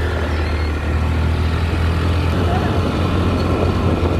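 Motorcycle engine running steadily under way, with a constant low hum and road and wind noise.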